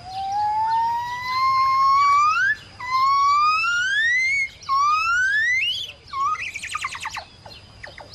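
A wild animal's whistled call: three long notes that each slide upward in pitch, each shorter and climbing higher than the last, then a quick run of falling notes. A faint steady high tone sounds underneath.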